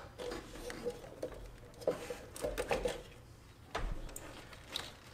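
Small clicks and rubbing of an old ignition coil wire and its rubber boots being handled. The wire's insulation is cracking apart.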